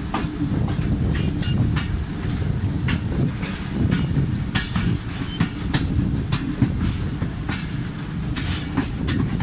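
Moving passenger train heard from an open carriage door: a steady heavy rumble of the coaches running on the rails, with frequent clacks of the wheels over rail joints, a few each second at uneven spacing.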